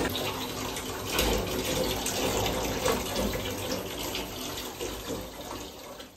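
Bathtub filling from a handheld shower hose: a steady rush of water pouring into the tub, dissolving coloured bath salt, fading out near the end.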